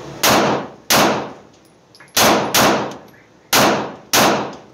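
Six 9mm pistol shots from an Arex Delta L Gen 2, fired as three controlled pairs: the two shots of each pair about half a second apart, the pairs about a second and a half apart, each shot echoing briefly in an indoor range bay.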